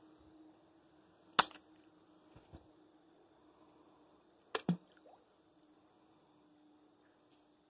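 A fishing magnet on a rope knocking against creek rocks: one sharp knock about a second and a half in, two quieter taps a second later, and a quick double knock past the middle.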